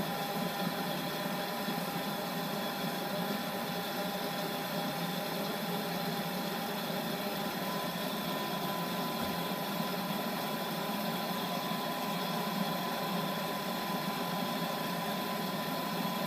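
Thermomix TM5 blender-cooker running at about speed 5 to 6, its blade motor spinning steadily to stir hot butternut squash soup, with an even whine over a churning noise.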